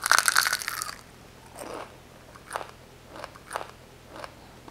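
A bite into a crisp, flaky deep-fried onion samosa: one loud crunch, then about five softer crunches as it is chewed. The crunch is the sign of a crisp pastry shell fried at moderate heat.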